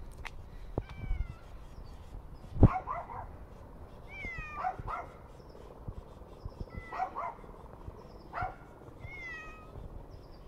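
Long-haired grey cat meowing repeatedly, a string of short calls about every second or two. A single sharp thump about two and a half seconds in, and low wind rumble on the microphone throughout.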